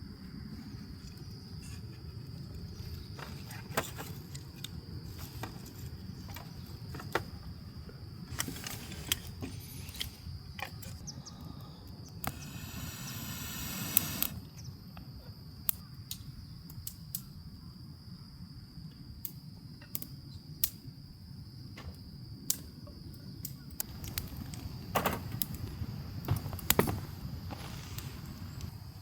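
A steady high insect trill over a low outdoor rumble, with scattered small clicks and knocks of gear being handled and a brief rustle about thirteen seconds in.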